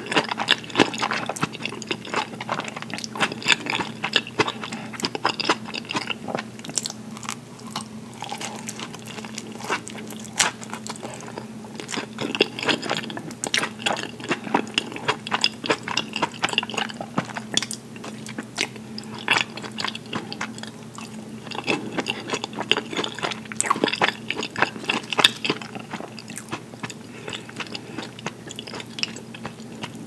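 Close-miked chewing of fresh mozzarella and tomato slices in balsamic dressing: wet mouth clicks and smacks in bunches, with quieter stretches between. A steady low hum sits underneath.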